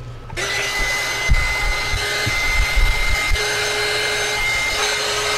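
A small handheld heat gun switches on about a third of a second in and runs steadily, its fan blowing with a steady high whine, as it shrinks heat-shrink tubing over soldered wires. A few low knocks of handling come in the first half.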